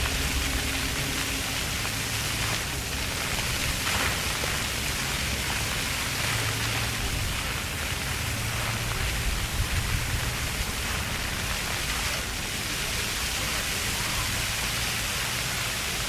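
Ground-level park fountain jets spraying and splashing onto pavement, a steady rushing hiss of falling water.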